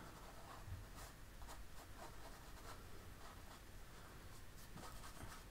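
Faint, scratchy strokes of a large filbert paintbrush being worked over a canvas, a series of short strokes about every half second.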